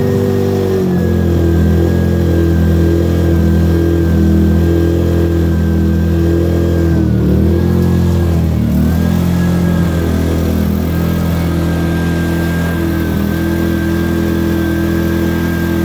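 Powerhorse 2000-watt inverter generator's small four-stroke engine running steadily after a cold start on choke. Its speed sags briefly about seven seconds in and again about nine seconds in, then holds steady.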